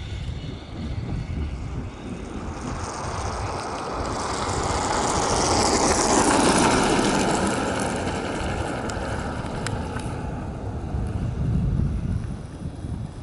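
Tram running along the track past the listener: a rumble and hiss of steel wheels on rails that swells to its loudest about halfway through, then fades away.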